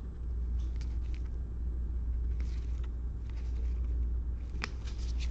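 Steady low background hum, with a few light clicks and rustles of trading cards being handled. The sharpest click comes about four and a half seconds in.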